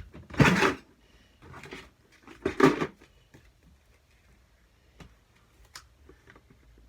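A box of markers being handled and put away: three short rattling clatters of plastic in the first three seconds, then a few faint small clicks.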